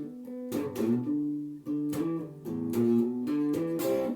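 Guitar playing a slow blues phrase between vocal lines: a string of picked notes and chord stabs, each note struck sharply and changing every fraction of a second.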